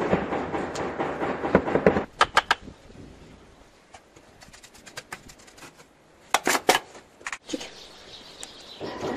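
Sharp knocks and taps on stone cladding tiles as they are set into mortar: three quick knocks about two seconds in, then a louder cluster of knocks late on, with quiet stretches between.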